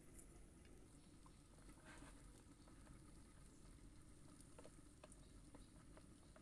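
Near silence: faint background hum with a few soft, scattered clicks.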